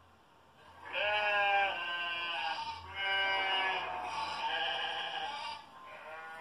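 Recorded sheep bleating in three long, wavering calls, then a fainter fourth near the end, played through a laptop speaker.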